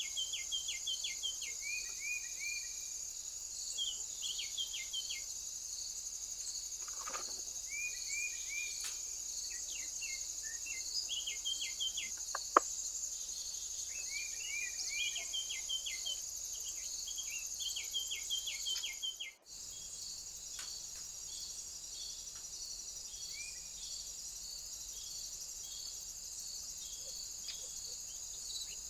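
Crickets or other insects trilling steadily and high, with small birds calling in short, repeated chirp phrases. The chirps are frequent at first and fewer in the last third. A single sharp click about midway is the loudest sound, and there is a brief gap about two-thirds through.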